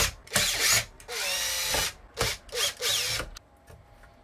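Cordless drill-driver spinning in several short bursts, its whine rising in pitch as each one spins up, with one longer steady run: backing out the screws that hold a speaker driver in its plastic enclosure.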